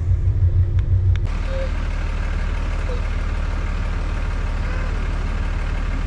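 Low rumble of a boat's engine heard inside the cabin, cut off about a second in by the steady low hum of a vehicle's engine running.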